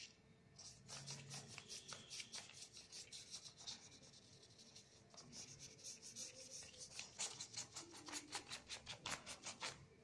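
Paintbrush scrubbing paint onto paper in quick back-and-forth strokes, about three or four a second, getting faster and louder after about seven seconds and stopping just before the end.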